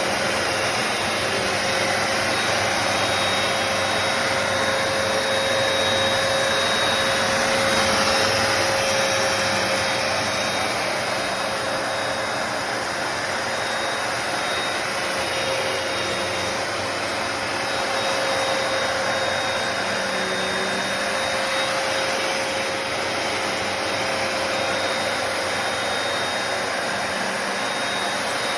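Hoover PowerDash Pet+ compact carpet cleaner running steadily: a constant rushing motor noise with a steady hum.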